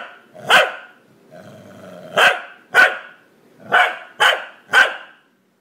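A corgi barking at close range: six short, loud barks in irregular pairs, with a low, drawn-out growl between the first and second. The barking stops near the end.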